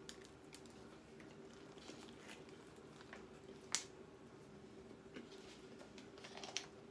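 Faint close-mic chewing and mouth sounds of a person eating pizza, with scattered soft clicks and one sharper click a little past halfway.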